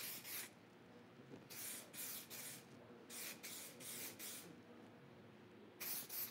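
Aerosol spot blender sprayed in a series of short hissing bursts, each under half a second, over a fresh 2K top coat to melt the dry overspray specks into the finish.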